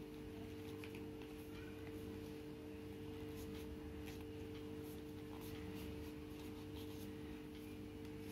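Faint, scattered rustling and crinkling of paper being folded and pressed by hand into a pleated fan, over a steady low hum.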